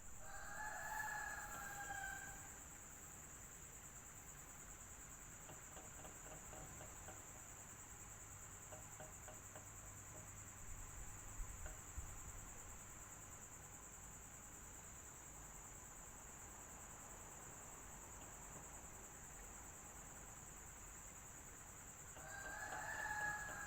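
A rooster crows twice, once at the start and again about twenty seconds later, each crow about two seconds long. Under it runs a steady high-pitched hiss, with a faint low hum coming in about seven seconds in.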